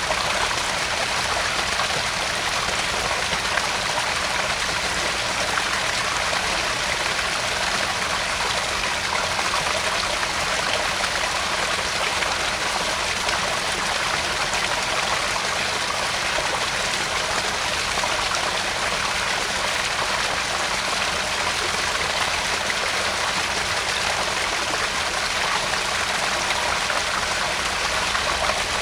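Small garden pond waterfall splashing and trickling steadily into the pond, a constant even rush of falling water.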